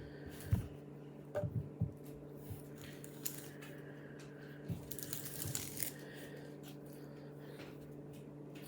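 Hands squishing and stretching a bead-filled slime, giving scattered soft pops and crackles in two short flurries, over a steady low hum.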